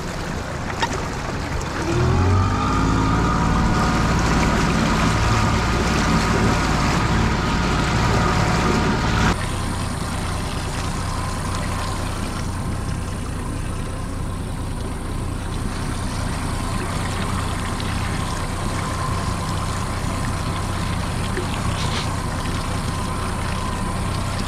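Boat outboard motor running under way: its pitch rises about two seconds in and then holds steady. About nine seconds in the sound changes abruptly to a quieter, even running with water noise, as at slow trolling speed.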